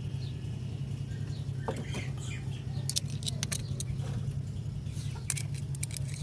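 Scattered light metallic clicks and taps as a screwdriver and the cam chain knock against the metal of a small motorcycle engine's cylinder, over a steady low hum.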